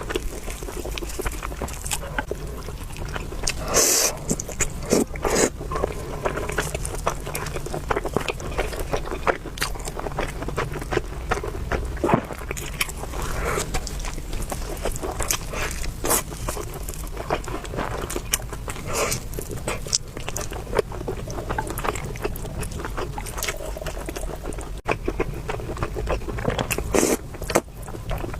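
Close-miked eating sounds of spicy beef noodles: wet chewing and mouth clicks, with the occasional slurp, strongest about four seconds in.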